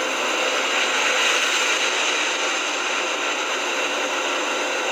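Electric fan heater running with a steady whoosh and faint hum.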